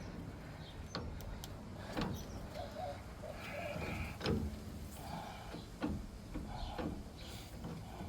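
Screw-type ball joint press being tightened to press a new lower ball joint into its control arm: irregular metal clicks and knocks about a second apart, with short squeaks and creaks from the press under load.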